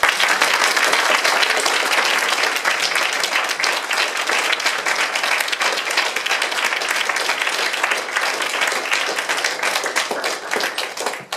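Audience applauding: many hands clapping together, starting all at once and dying away near the end.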